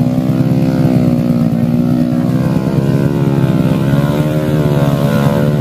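Small motorcycle engine running hard under load with its pitch wavering up and down as the throttle is worked, the bike straining to get through deep mud.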